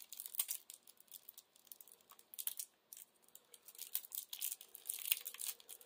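Plastic wrapping on a pack of game cards being picked at and peeled by fingers: scattered, irregular crinkles and crackles with a brief lull partway through.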